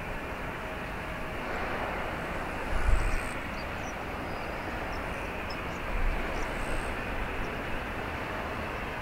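Steady noise of a taxiing Airbus A350-900 airliner, with two short low thumps about three seconds and six seconds in.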